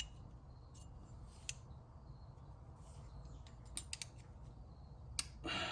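A few sharp, light metal clicks and ticks over a faint low hum, as a worn shaft is measured with a micrometer. A brief rustle comes near the end.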